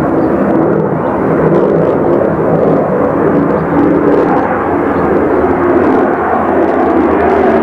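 Propeller aircraft piston engines droning steadily and loudly, a dense, even roar with a muffled top end.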